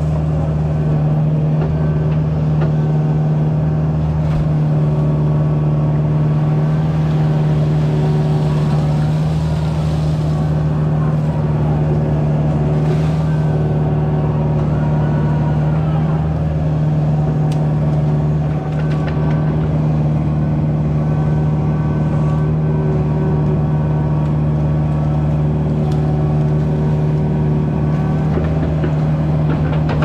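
Kubota mini excavator's diesel engine running at a steady speed, over the sound of water rushing through a breached beaver dam.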